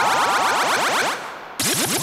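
Electronic magic sound effect for a spell: a fast, dense run of rising synthesized sweeps that dies away about a second in, then starts again suddenly with a fresh burst of rising sweeps.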